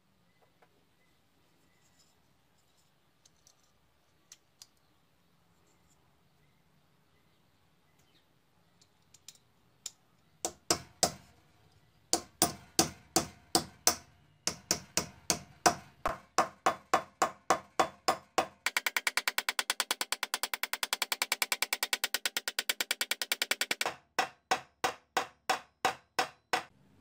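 Steel hammer peening the pivot pin of a homemade folding knife on a vise anvil, metal striking metal with a ringing tap. A few faint clicks come first. About ten seconds in the hammer taps start at about three a second, then a fast run of light taps follows, then slower taps again near the end.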